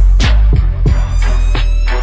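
Background music: a steady drum beat over a deep, sustained bass.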